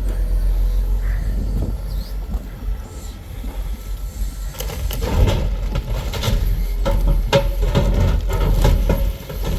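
A heavy engine rumbling low and steady, with a dense run of knocks, cracks and rattles starting about halfway through.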